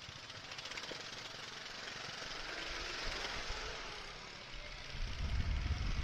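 Motorcycle on the move, heard as a rushing wind noise that swells and eases, then from about five seconds in heavy wind buffeting on the microphone as the bike picks up speed.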